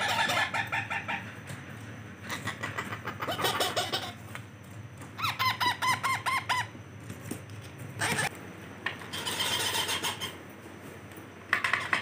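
Indian ringneck parakeet chicks giving rapid, repeated food-begging calls in short bursts of about a second, several times over.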